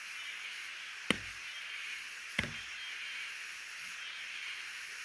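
Two sharp knocks, about a second and a half apart, over a steady hiss.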